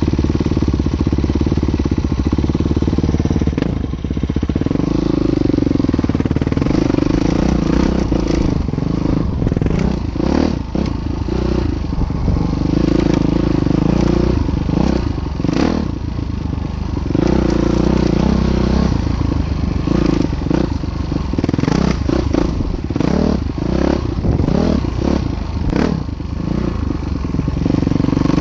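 Train crossing a bridge: a steady engine drone under a run of clattering knocks from the wheels on the track.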